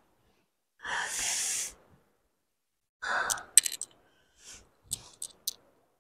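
A woman in pain sighing: one long breathy exhale about a second in, then a shorter breath about three seconds in. A few faint clicks follow.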